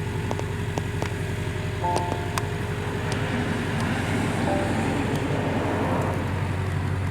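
Hydraulic excavator's diesel engine running steadily, with a few sharp knocks and cracks from the demolition work.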